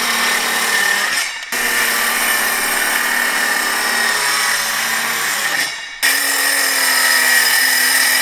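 Milwaukee cordless circular saw running and cutting through a plywood sheet, a steady loud whine. It cuts off and starts again abruptly twice, about a second and a half in and about six seconds in.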